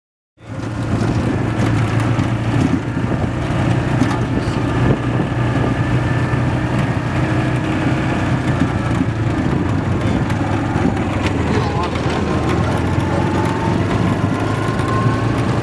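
Side-by-side utility vehicle driving, heard from inside its open cab: a steady low engine drone over running noise.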